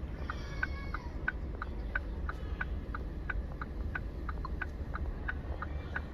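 Car indicator relay ticking in the cabin, an even tick-tock at about three clicks a second, over the low hum of the car.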